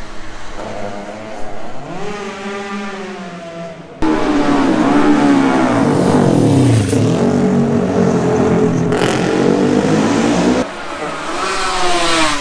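Racing motorcycles at full speed on a closed road course. The first engine revs up through the gears. A loud, close pass-by follows, with the pitch dropping sharply as the bike goes past. Near the end another bike's engine note rises as it comes up the road. The sound jumps abruptly in loudness about four seconds in and again near the end.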